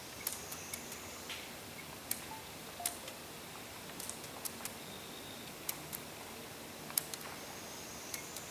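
Quiet waterside ambience: irregular sharp clicks and ticks, about a dozen scattered through, over a steady faint hiss, with a few thin high tones now and then.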